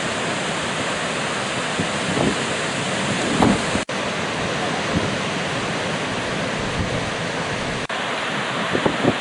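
Steady rushing noise of ocean surf and wind on the microphone, with a few low muffled bumps; the sound cuts out for an instant twice.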